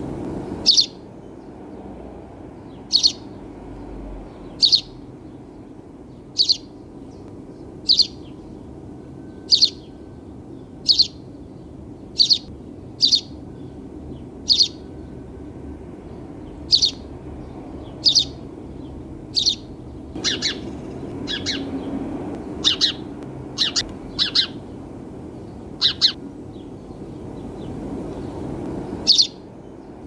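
House sparrow chirping: single loud, short chirps about every second and a half, coming quicker in a cluster about two-thirds of the way through, over a steady low background noise.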